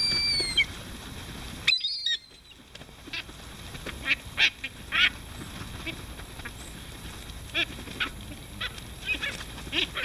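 A flock of gulls calling as they crowd in to feed: many short, high calls, some with a sliding pitch, scattered throughout, with a brief lull about two seconds in.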